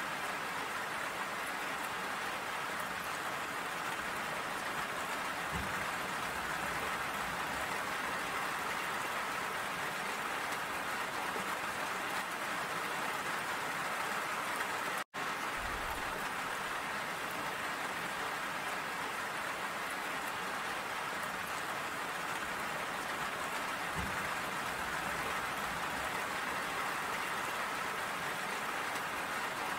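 Steady rain falling, an even hiss of drops that cuts out for an instant about halfway through.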